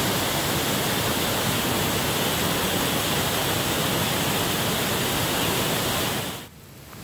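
Waterfall on a mountain creek: a steady rush of water falling into a rocky pool. It cuts off abruptly about six seconds in, leaving a much quieter hiss.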